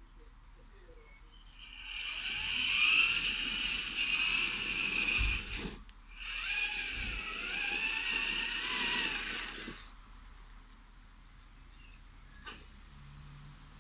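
Radio-controlled eight-wheeled model truck driving: its motors and gears whine, rising and falling with speed. It makes two runs with a brief stop about six seconds in, and stops about ten seconds in. A single click follows near the end.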